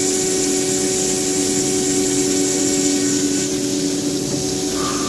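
Ceramic chamfering machine running: a steady machine hum with a high hiss on top, which eases off about three and a half seconds in.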